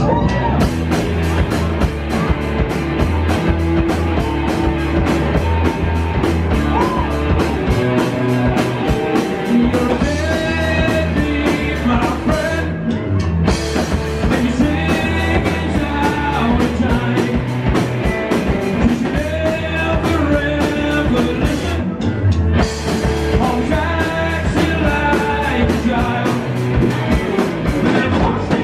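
Rock band playing live: distorted electric guitars, bass and drums on a steady beat, with a man singing over them.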